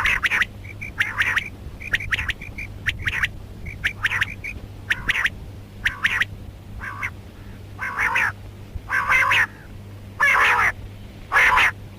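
Quail calls, female rain quail mixed with other quail calls: harsh, raspy calls repeated about once a second. In the first half they are interspersed with short, thin, high notes.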